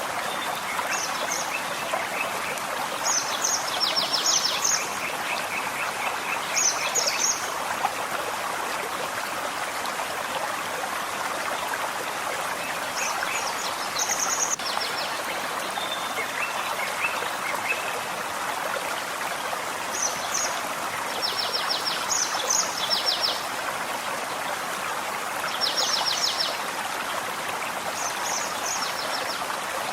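A forest stream running steadily, with songbirds singing short, rapid trilled phrases every few seconds over it.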